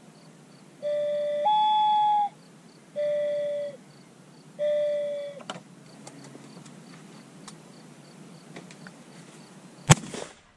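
A dove cooing: a low note stepping up to a higher held coo, then two separate lower drawn-out coos. Near the end, a single shotgun shot.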